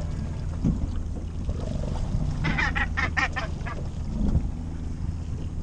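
Northern gannet, hooked on a trolling lure, giving a quick run of about six calls about two and a half seconds in.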